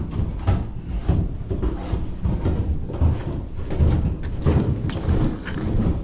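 Roof tear-off heard from inside the house below: a constant racket of irregular heavy thuds and knocks as old shingles are stripped and dropped.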